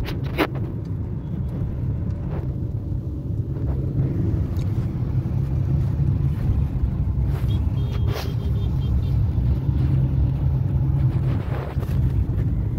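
Engine and road noise from inside a moving car's cabin: a steady low rumble, with a couple of brief clicks, one just after the start and one about eight seconds in.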